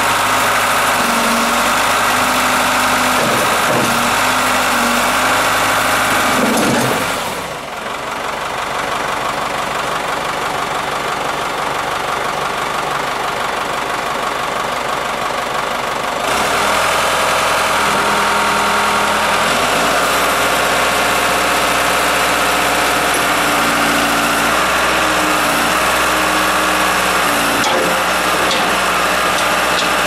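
Case 3.9-litre four-cylinder diesel engine of a 2000 Case 580 Super L II backhoe running, its note changing pitch several times as the engine speed shifts, with a brief dip in level about seven seconds in.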